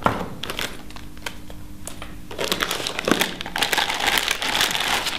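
Plastic wrapping crinkling as a bagged accessory is lifted out of a cardboard box and handled, starting about halfway through. There is one sharp click at the very start.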